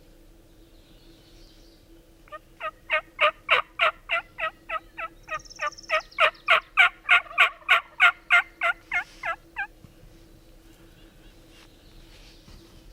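Wild turkey yelping: a fast run of about thirty sharp yelps, about four a second, lasting some seven seconds and loudest in its middle part.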